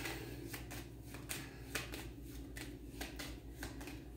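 A tarot deck being shuffled by hand: soft, irregular card flicks and slaps, several a second.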